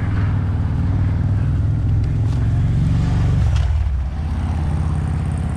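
Pickup truck engine running as the truck drives slowly, its note building a little and then easing off about three and a half seconds in.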